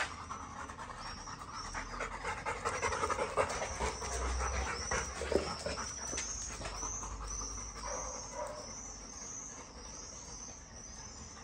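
Yellow Labrador retriever panting steadily in a quick repeating rhythm.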